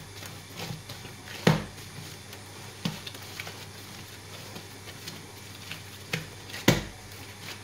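Hands kneading and rounding a soft bread dough on a stone countertop, with a few sharp knocks as the dough is pressed and dropped on the counter, the loudest about a second and a half in and near the end. A steady low hum runs underneath.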